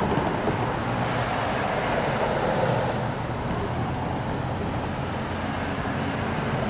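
Union Pacific train passing, a steady rolling rumble of wheels on the rails.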